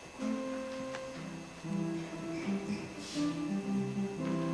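Slow instrumental music: a melody of held notes over sustained chords, changing every half second or so.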